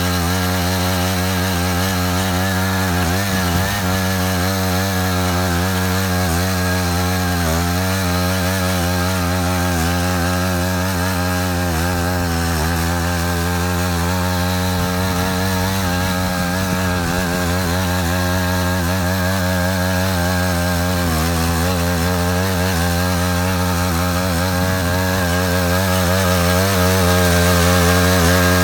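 Matsuda power tiller's engine running steadily under load while cutting a ditch, its pitch wavering slightly as the load changes. It gets a little louder near the end.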